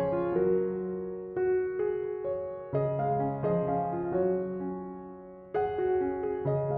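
Soft piano background music. Chords and notes are struck every second or so and left to ring and fade.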